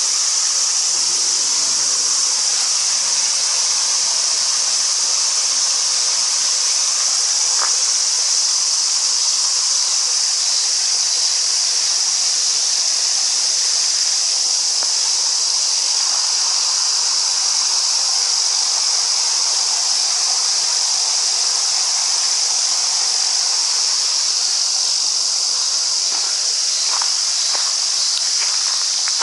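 Cicadas in chorus: a loud, steady, high-pitched drone that never lets up. A few faint footsteps on gravel come in near the end.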